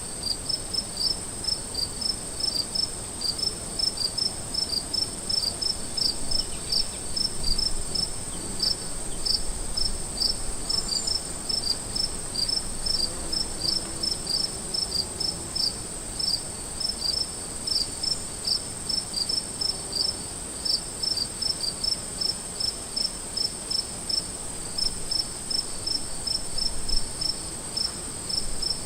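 Crickets chirping in a chorus: a steady high trill with regular, evenly spaced chirps repeating a few times a second over it.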